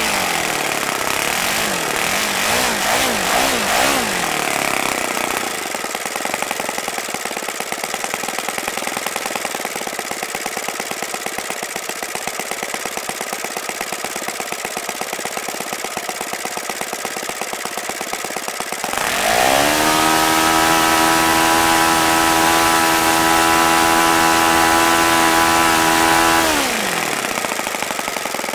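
OS FS-95V four-stroke glow model-airplane engine turning a 14x6 propeller: it is throttled down from about 9,000 RPM, settles to a steady idle near 2,000 RPM for about a dozen seconds, then is opened up sharply to a higher steady speed for about seven seconds and throttled back down near the end.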